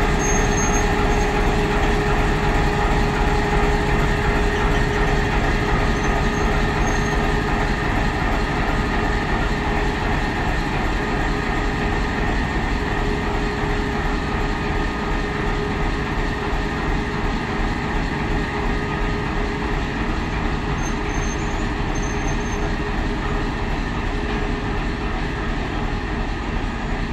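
ChME3 diesel shunting locomotive running as it moves off along the track with its cars, its six-cylinder diesel engine giving a steady drone with a steady hum on top. The sound fades gradually as the locomotive draws away.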